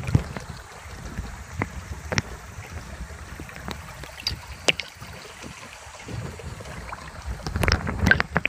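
River water heard underwater through a camera's waterproof housing: a steady low muffled rush, with scattered sharp clicks and knocks that grow busier and louder near the end.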